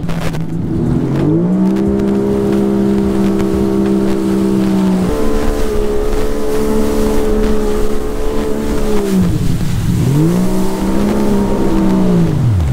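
Yamaha WaveRunner personal watercraft under way: the engine revs up about a second in and holds steady at speed, eases off sharply around nine seconds, revs back up, then falls off at the end, over a constant rush of water spray and wind.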